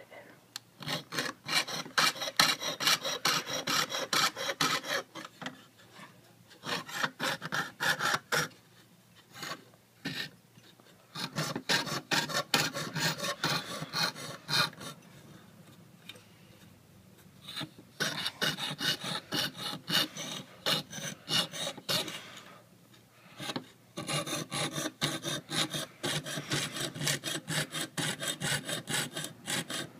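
Jeweler's saw cutting copper sheet by hand on a wooden bench pin: quick back-and-forth strokes of the fine blade in five runs of a few seconds each, with short pauses between.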